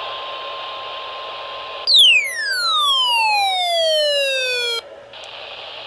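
Radio static hiss with a faint steady high tone, then a loud electronic whistle about two seconds in that falls from very high to low over about three seconds and cuts off suddenly; the static returns just after.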